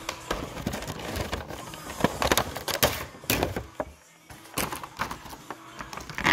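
Cardboard box and clear plastic blister tray of a vinyl Funko Pop figure being handled and pulled apart: an irregular run of crackles, clicks and knocks, quieter for a moment about four seconds in.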